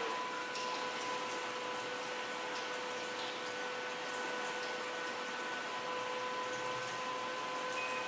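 The booster pump built into an instant electric water heater runs steadily with a constant whine, turned up to raise the water pressure. Water rushes from the outlet.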